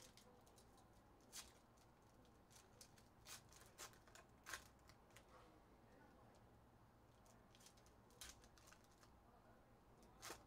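Faint handling of foil trading-card packs and cards: scattered short, crisp crinkles and clicks.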